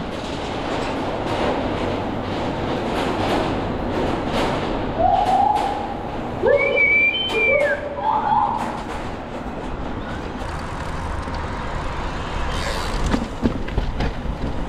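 Mountain bike riding a dirt trail: a steady rush of wind and tyre noise with the frame and parts clattering over bumps. About five to eight seconds in come a few short whistle-like tones, some sliding up and some down.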